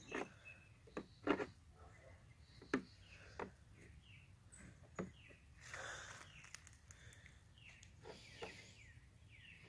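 Faint, scattered taps of a young goat's hooves on a plastic toddler slide, with a brief rustle about six seconds in. Small birds chirp faintly behind.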